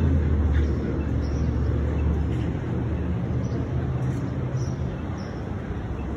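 City street traffic: a steady low rumble of vehicle engines, with faint ticks and clatter above it.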